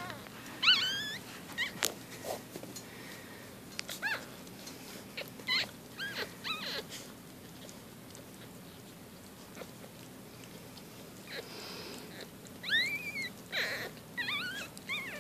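Four-day-old Shih tzu–Bichon puppies squeaking and whimpering in short, high-pitched cries, some arching up and down in pitch. The cries come singly through the first half and bunch together near the end.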